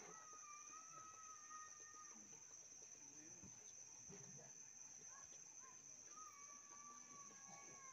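Near silence, with a distant rooster crowing twice, each crow a long held call of about two seconds, the second sliding down at its end. A faint steady high whine runs underneath.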